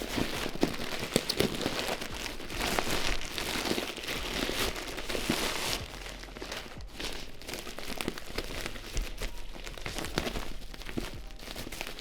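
Plastic packaging of a new camera sling bag crinkling and crackling as it is handled and pulled at by hand, in an attempt to tear it open.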